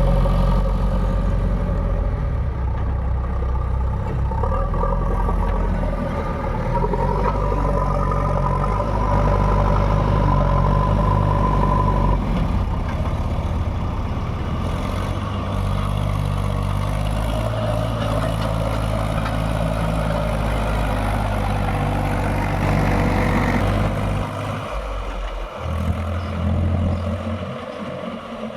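Diesel engines of a backhoe loader and tractors running steadily. The engine note shifts about twelve seconds in and dips briefly near the end.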